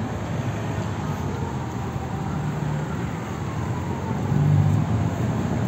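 Street traffic passing: car engines and tyre noise, the engine hum growing louder about four seconds in as a vehicle comes close.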